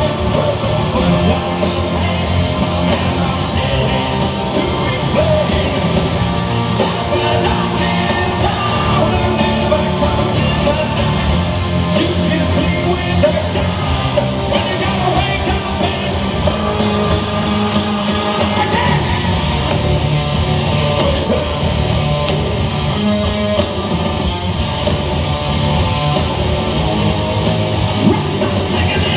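Hard rock band playing loudly and without a break, electric guitars, bass and drums, with a singer's voice over the top.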